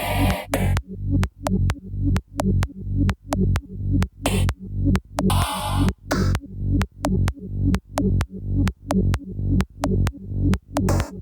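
Electronic dance music from a DJ mix: a steady deep kick drum at about two beats a second, with sharp ticks over it and a few short bursts of hissing sweep.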